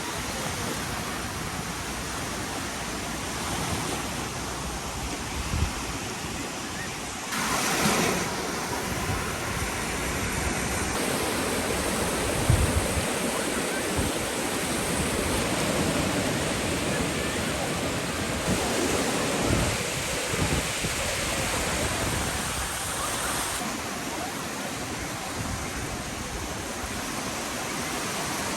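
Steady rushing of surf washing on a beach, with a few short low thumps along the way and a brief swell about eight seconds in.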